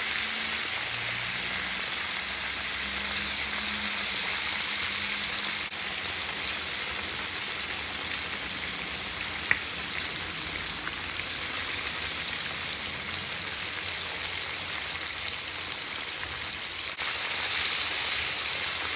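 Floured cod pieces frying in hot oil in a pan, a steady sizzle. One sharp click about halfway through.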